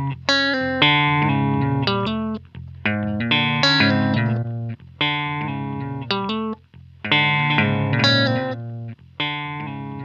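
Electric guitar chords played through a looper pedal, heard as blocks of chords about two seconds long that start and stop abruptly one after another.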